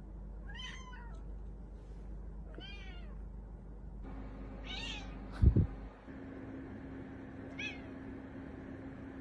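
Ginger tabby cat meowing: four short meows a couple of seconds apart. A dull low double thump, the loudest sound, comes a little past halfway.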